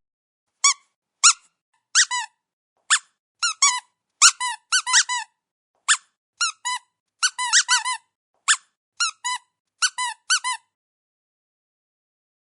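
A series of short, high-pitched squeaks, about twenty of them, many coming in quick pairs, with silence between them; they stop about ten and a half seconds in.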